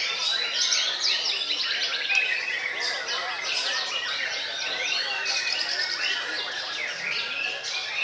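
White-rumped shamas singing in a dense, unbroken chorus of rapid, varied whistles and chattering phrases, several birds overlapping at once.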